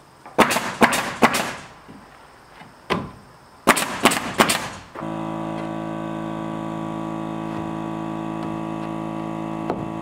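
Rough-sawn wooden siding board being knocked into position against the wall: a quick run of four sharp knocks, then three more a few seconds later. Halfway through, a steady, even hum of several pitches starts suddenly and cuts off near the end.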